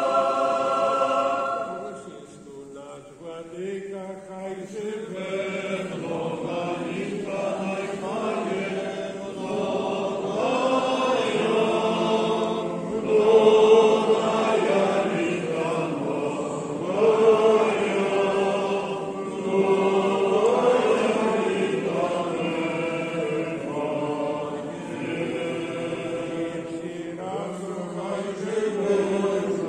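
Unaccompanied Orthodox liturgical chant sung by several voices. A held chord ends about two seconds in, then after a brief quieter stretch the singing resumes and swells.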